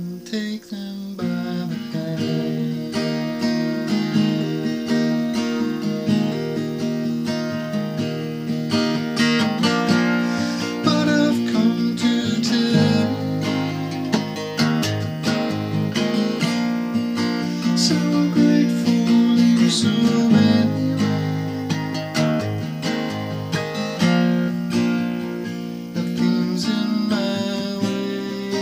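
Steel-string acoustic guitar tuned to drop D, strummed and picked through the chords of a song.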